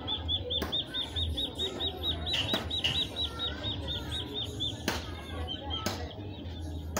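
Duckling peeping in a fast, even series of high chirps, about five a second, stopping about five seconds in with a couple more peeps a second later.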